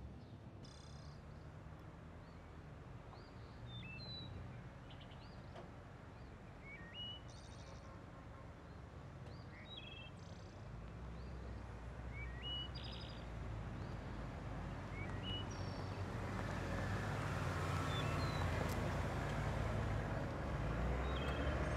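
Birds chirping in short, scattered calls, while a car's engine comes in low and grows steadily louder over the second half as the car drives up close.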